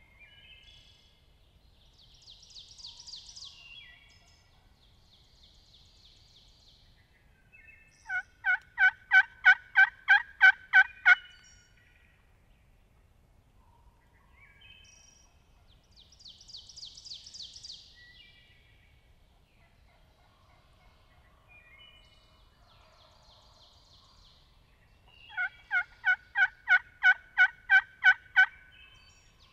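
Wild turkey calling: a run of about ten loud, evenly spaced notes lasting some three seconds, then the same run again about seventeen seconds later. Fainter, higher bird calls come in between.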